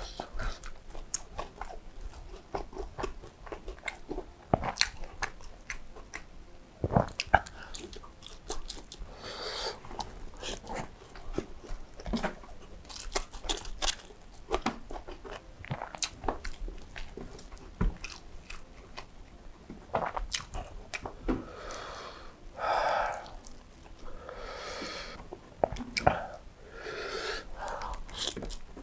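Close-miked chewing and biting of coriander fried chicken, rice and cucumber by hand: wet mouth smacks and crunching, with many sharp clicks. A few longer, louder mouth sounds come near the end.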